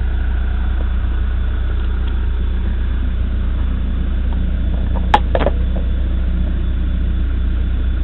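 Backhoe's diesel engine running steadily, with a sharp metallic clank about five seconds in followed by a couple of lighter knocks.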